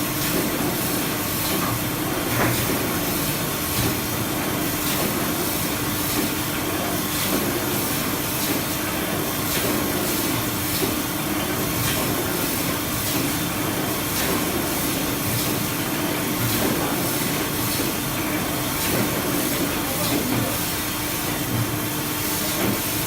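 Automatic band saw tissue-roll cutting machine running: a steady mechanical noise with a constant hum and faint regular knocks about once a second.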